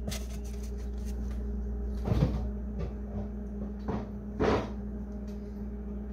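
Kitchen cupboard door being opened and shut, with two short soft knocks about two seconds in and about halfway through, over a steady low hum.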